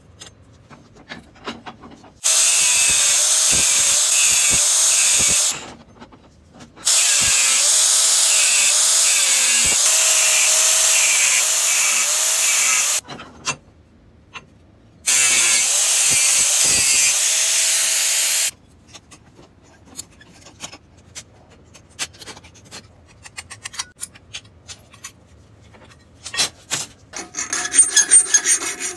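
Power saw cutting steel square tubing in three separate runs, a loud hissing cut over a steady, slightly wavering whine, each run starting and stopping abruptly. Between and after the cuts come light clicks of metal pieces being handled, and scraping near the end.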